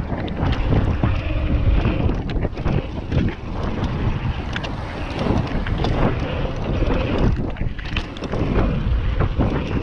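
Wind rushing over the microphone as a Nukeproof mountain bike rolls over a dirt jump line, with tyres on loose dirt and many short clicks and rattles from the bike.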